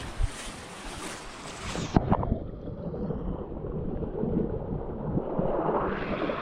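Wind buffeting the microphone over the wash of surf and shallow water. About two seconds in the sound changes abruptly to a duller, lower rumble of wind and water.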